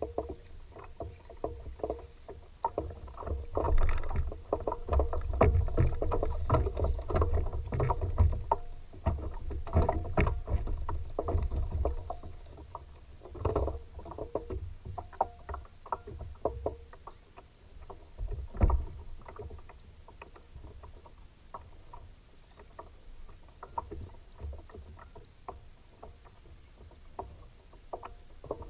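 A fishing kayak on the water: small knocks and clicks against the hull with a low rumble of water. It is busiest and loudest in the first half, with one sharper knock later, then quieter.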